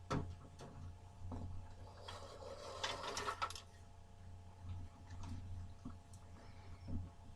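Faint clicks and a brief rustle over a low steady hum.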